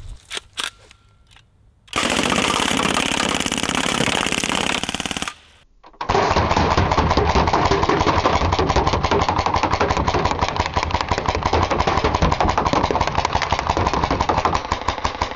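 A full-auto BB submachine gun fires two long bursts, a fast rattle of shots, with BBs striking aluminium drink cans. A few light clicks come first. The first burst lasts about three seconds, and the second starts after a brief pause and runs about ten seconds.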